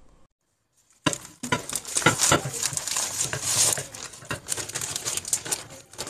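Baking paper crinkling and rustling as hands peel it open and off a rolled sponge cake. It starts about a second in, after a moment of silence.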